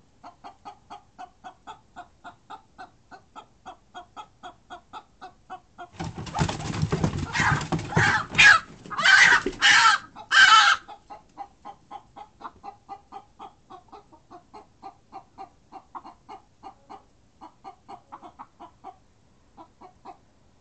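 Hens giving alarm clucks, a steady run of short clucks about three a second, stirred up by an opossum in the coop. Between about six and eleven seconds in comes a loud outburst of harsh squawking.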